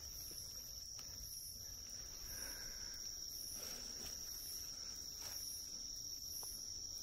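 Crickets singing, a steady continuous high trill with a fainter pulsing insect call above it, and a few faint rustles of footsteps in leaf litter.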